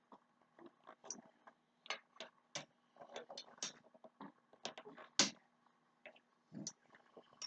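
Irregular clicks and knocks of a Rock 'n Play sleeper's frame tubes being handled and pushed together, the loudest knock about five seconds in.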